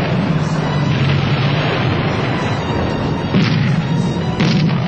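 Film music over the sound of a military field exercise: a continuous dense rumble of explosions, with two sharp blasts about a second apart in the second half.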